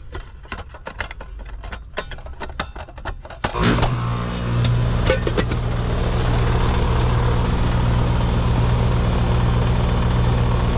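A few light clicks, then about three and a half seconds in an air-conditioning condensing unit starts up and runs with a steady hum and fan noise while the system is being charged with refrigerant.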